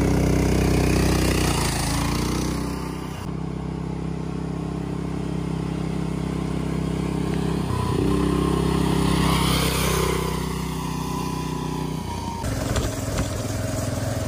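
Predator 440cc single-cylinder petrol engine of a gas-converted golf cart running under load as the cart drives, its note rising and falling with the throttle. The sound changes abruptly twice.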